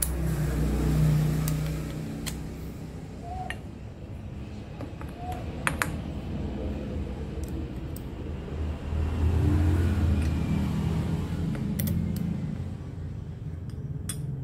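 Steel hex-nut clamps and an Allen key clinking and scraping on a milling machine's rotary table as the clamps are set around a workpiece: a few sharp metallic clicks, the loudest a double click about halfway through. Under them runs a low hum that swells twice.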